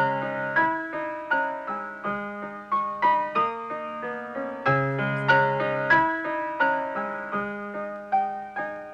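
Solo piano music: a melody of struck notes over low bass notes that change every second or so.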